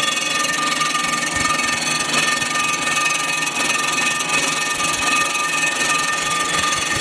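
Storm Vulcan Blockmaster 85B surfacing machine running, its spinning cutter taking a light finishing pass across the deck face of a cast-iron Jeep 258 cylinder head that is being milled flat after warping from overheating. A steady whine with several high pitched tones over a hiss.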